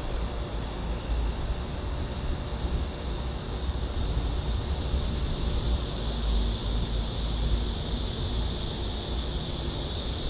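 Insects chirping outdoors in short, evenly pulsed groups, repeating every second or so over a steady high hiss, with a low rumble of wind on the microphone underneath.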